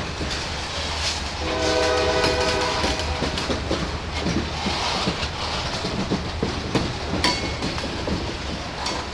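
Covered hopper cars of a freight train rolling past, wheels clicking and knocking over the rail joints. About a second and a half in, a locomotive air horn sounds one short chord from far up the train.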